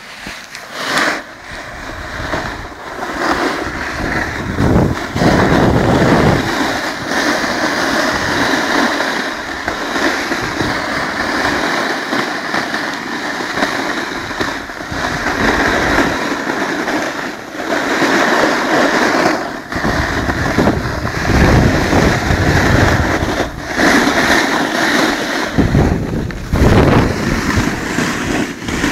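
Wind rushing over the microphone, buffeting harder several times, over the steady hiss and scrape of a snowboard's edge across packed snow.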